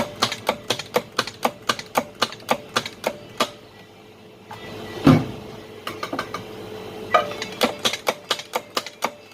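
A run of sharp clicks or taps, about three a second, that stops after three seconds or so; a single low thump falls about five seconds in, and the clicks start again a second later.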